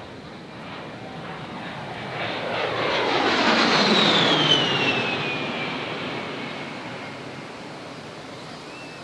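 Aircraft flying past: it grows louder to a peak about four seconds in, then fades away, with a high whine that falls in pitch as it passes.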